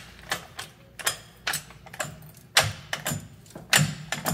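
Jack under a car's rear axle being pumped, giving a pair of sharp metallic clicks with each stroke of the handle, about one stroke a second, as it raises the axle so the shock absorber can reach its mount.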